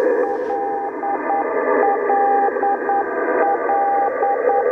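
Shortwave receiver audio of a telegraph beacon sending the same short Morse code group over and over as a keyed beeping tone. It comes through hiss and the buzz of an adjacent teletype signal.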